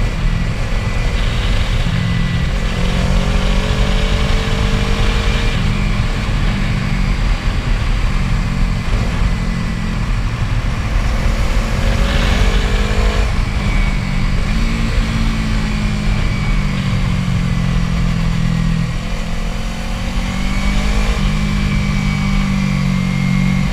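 Yamaha R3's 321 cc parallel-twin engine heard through a Yoshimura R77 carbon exhaust while riding, a deep steady note whose pitch rises and falls several times as the throttle opens and closes through the corners.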